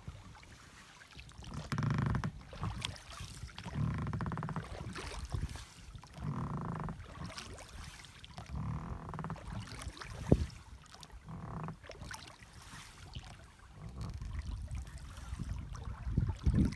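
A small boat being rowed across a lake: oar strokes swish through the water in a steady rhythm, roughly one every two seconds, with a single sharp knock about ten seconds in.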